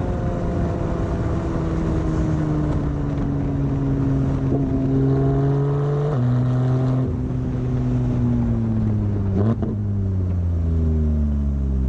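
2018 Porsche 911 GT3 RS's naturally aspirated flat-six through a Carrera Cup race exhaust, its note falling steadily as revs come down. The pitch drops sharply about six seconds in, jumps briefly with a short blip of revs about three seconds later, then settles low.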